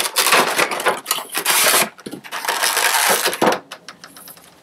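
A Funko Pop's cardboard window box and plastic insert being opened: scraping and rustling of cardboard and plastic, then a quick run of small clicks near the end as the figure is worked out of its tray.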